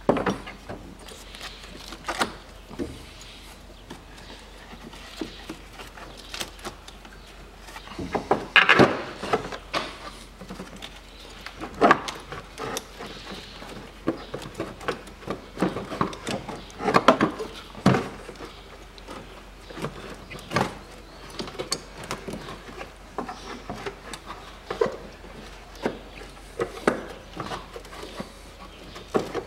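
Irregular metallic knocks, clunks and scrapes as a car's air-conditioning compressor is worked by hand down into its mounting in the engine bay. The loudest clusters come about nine, twelve and seventeen seconds in.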